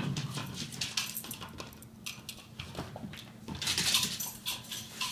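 A puppy scampering and scuffling in play: a quick, irregular run of light clicks and jingles from its claws and collar, busiest about four seconds in.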